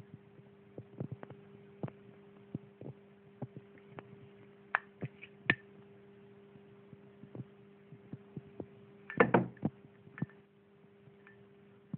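Black flip-top cigarette lighter being handled: scattered small clicks and taps of its metal case and hinged lid, a few with a brief ringing around five seconds in as the lid is opened, and a louder rattling clatter about nine seconds in. A steady low hum runs underneath.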